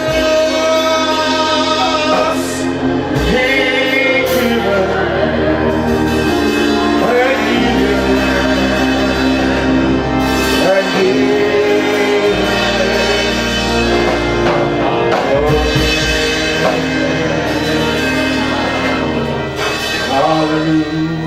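Live gospel worship music: a church band playing, with voices singing over it.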